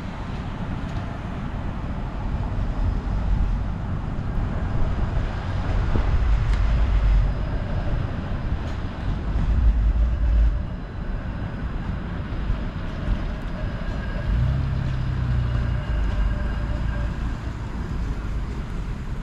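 City street traffic on wet pavement, dominated by a low-floor electric streetcar rolling through the intersection with a deep rumble that is heaviest around the middle. Later a steady low hum lasts a few seconds.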